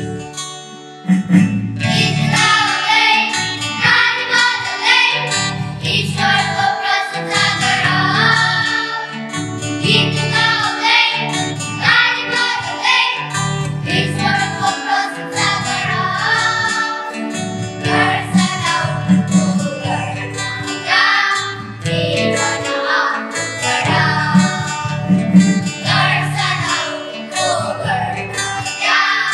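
Children's choir singing a Nepali Christmas hymn together, backed by guitar, keyboard and a steady drum beat.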